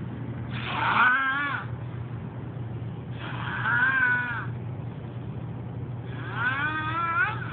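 Snoring in which each breath comes out as a high, squeaky whistle that bends up and down in pitch. There are three breaths, about three seconds apart, over a steady low hum.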